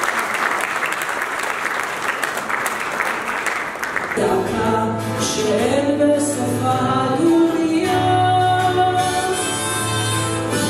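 Audience applause for about four seconds, then acoustic guitar music begins, with a melody line that glides up and down in pitch over a pulsing bass note.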